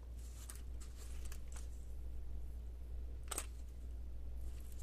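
Faint handling of a zip-around key case in the hands: soft rustles and a few light clicks, the clearest about three and a half seconds in, over a low steady hum.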